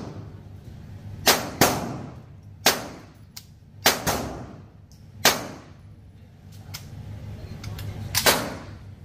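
Single gunshots at irregular intervals, about seven in all, each a sharp crack followed by a ringing echo off the walls of an indoor shooting range.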